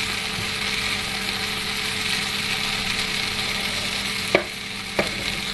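Diced potatoes sizzling steadily in hot oil in a frying pan. They are still pale and frying toward golden. Two sharp knocks come near the end.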